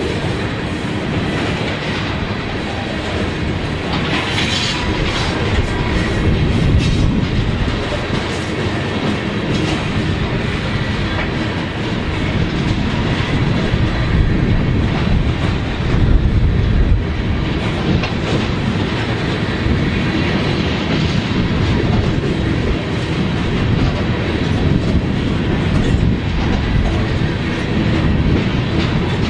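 A loaded freight train of covered hopper cars rolling past at low speed, its steel wheels rumbling and clacking steadily over the rail joints.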